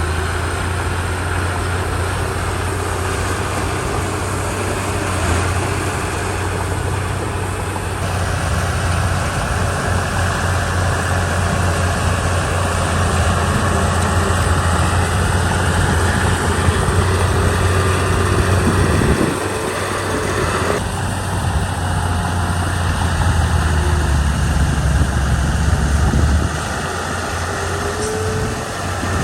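Komatsu D31 bulldozer's diesel engine running with a low drone as it works dirt, the engine note falling off briefly about two-thirds of the way through and again near the end.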